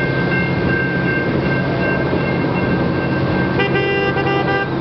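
Alaska Railroad passenger train running with a steady rumble and a high whine, and a horn blowing once for about a second near the end.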